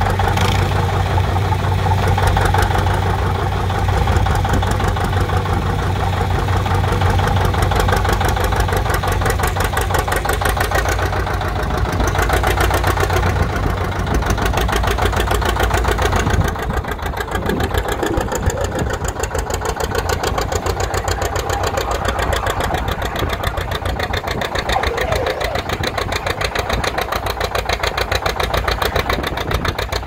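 John Deere 720 Diesel's two-cylinder engine running with a steady rhythmic beat, a little quieter from about halfway through. Near the end it is working under load, pulling a weight-transfer sled.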